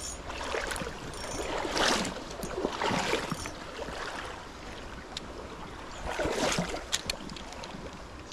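Shallow river water running and rippling, with a few louder swishes along the way.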